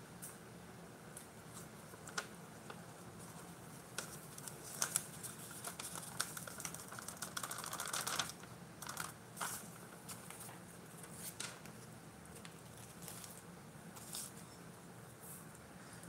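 Light handling noises: scattered soft taps and clicks with paper rustling as a sheet of paper and a glitter-painted cup are moved and turned over each other.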